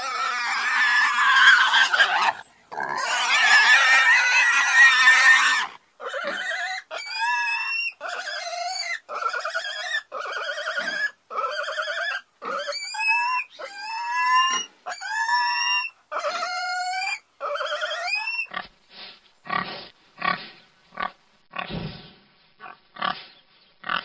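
Pigs squealing: two long, loud squeals in the first six seconds, then a run of about sixteen short squeals, a little more than one a second, each rising in pitch. Near the end come about ten short, lower grunts.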